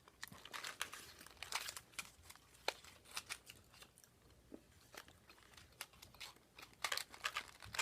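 Someone chewing a small crunchy chocolate snack, a quick run of faint, irregular crunches and clicks.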